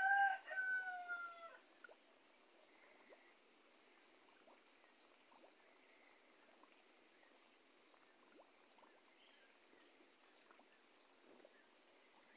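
A rooster crows once, a drawn-out call that falls slightly in pitch and ends about a second and a half in. After that there is only a faint steady hiss with a few faint ticks.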